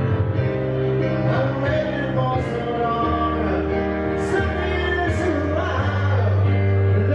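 Music with a singer, played live on piano.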